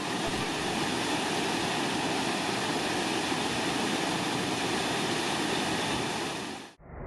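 Steady rushing roar of a waterfall, which cuts off abruptly near the end.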